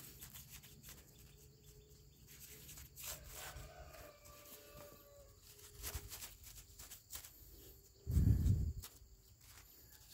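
Faint scratching and light clicks of a thin stick working rain-compacted soil around a melon seedling in a hole cut in plastic mulch, with a brief low rumble about eight seconds in.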